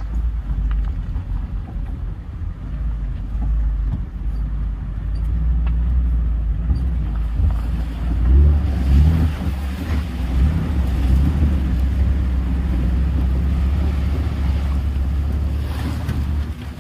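Maruti Gypsy off-road jeep's engine running as it drives through a shallow, rocky river, a low steady rumble that swells and wavers with the revs about halfway through, mixed with wind buffeting the microphone.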